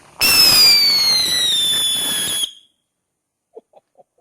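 BlackCat Smoke Alarm firework letting out a loud whistle over a rushing hiss. It starts suddenly, falls steadily in pitch for a little over two seconds and cuts off sharply, followed by a few faint ticks.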